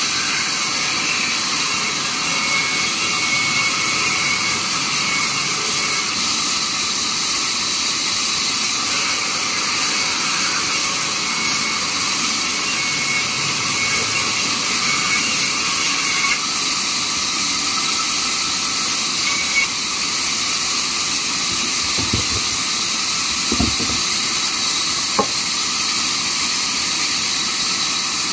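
Large vertical band saw running and cutting timber as a slab is fed through, a loud, steady high-pitched hiss. A few light knocks near the end.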